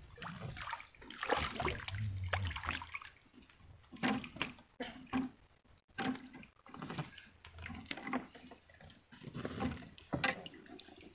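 Water sloshing and splashing around a small wooden river boat, in irregular swells, with handling knocks and a sharp knock near the end.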